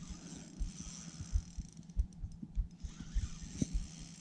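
Daiwa Ninja LT2500 spinning reel working against a strong fish, with mechanical clicking and a high hiss that swells twice. Under it run dull low thumps, about two to three a second.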